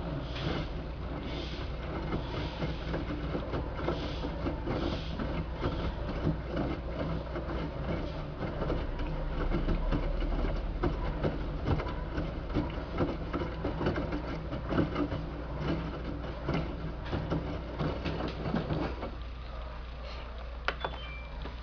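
LG 6Motion WD1485TD front-loading washing machine tumbling wet towels in its drum: a dense run of soft knocks and swishes over a low steady hum. The tumbling stops about three seconds before the end, leaving only the hum.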